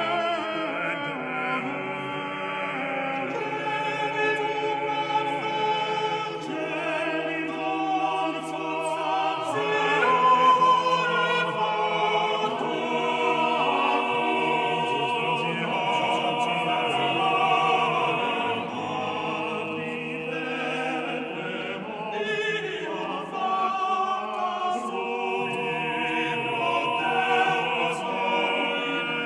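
Background music: classical-style vocal music with sung, operatic or choral voices over sustained accompaniment.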